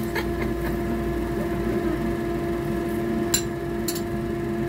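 A metal spatula clinks sharply against a ceramic bowl a few times as fried garlic and ginger are scraped off it, over a steady mechanical hum from the kitchen.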